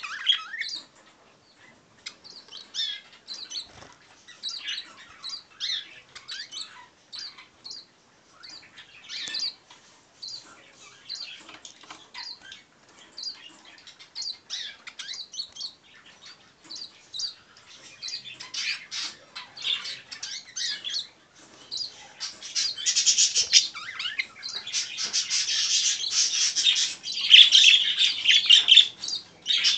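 European siskins chirping in a cage: short high calls, scattered at first, becoming rapid, louder and almost continuous over the last several seconds.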